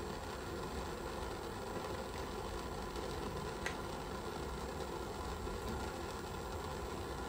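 Butane torch burning with a steady hiss. A single light click about three and a half seconds in.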